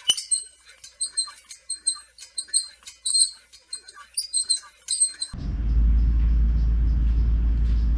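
Quick run of light metallic clinks and ticks, then a steady low rumble starts about five seconds in.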